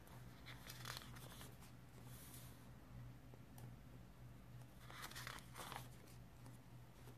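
Pages of a collaged Stalogy notebook turned by hand, with soft paper rustles about a second in, again near two seconds, and once more around five seconds.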